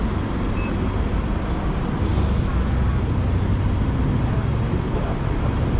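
City street traffic: vehicle engines running, with a heavier low rumble building about two seconds in as a large vehicle comes close.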